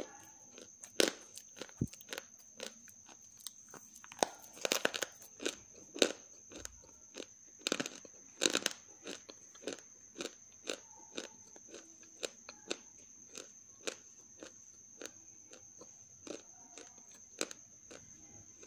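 Half-roasted grey clay (gachi) crunching as fingers press and crush chunks of it in a plastic bowl: irregular crisp cracks, about one or two a second, with two quicker flurries about a quarter and halfway through.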